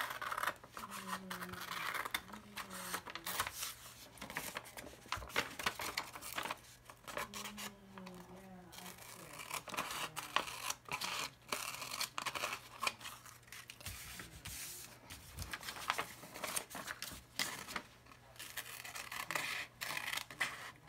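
Scissors cutting through folded sheets of regular 8.5 by 11 paper: a long run of short snips mixed with the rustle of the paper being handled and turned.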